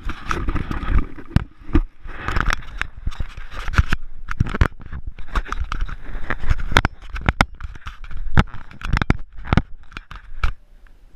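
Rustling and scraping of cloth and gear right against a body-worn camera, with many irregular sharp clicks and knocks. The sound quietens near the end.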